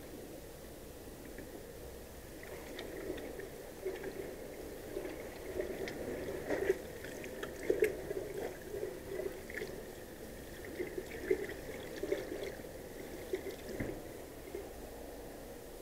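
Faint, irregular clicks and small knocks of things being handled, busiest in the middle stretch.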